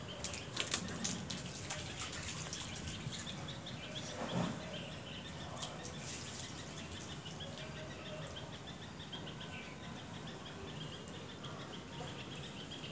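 Quiet outdoor ambience on a wet terrace: faint bird chirps and water dripping, with a few sharp clicks in the first couple of seconds and a short louder sound about four seconds in.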